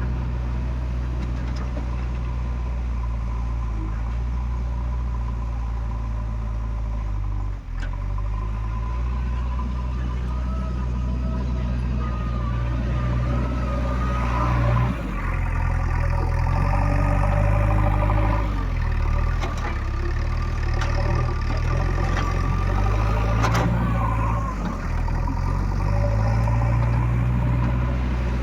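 Heavy diesel engine of earthmoving machinery running steadily, with a brief drop a little over a quarter of the way in. It grows louder and revs up and down from about halfway through, as when the machine works under load.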